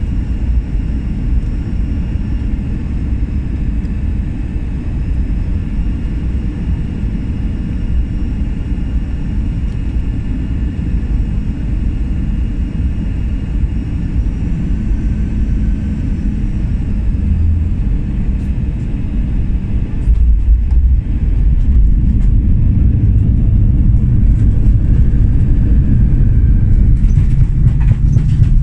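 Inside the cabin of a jet airliner on final approach and landing: steady engine and airflow noise with a faint whine. About two-thirds of the way in, just after touchdown, it gives way to a sudden, louder low rumble of reverse thrust and wheels rolling on the runway.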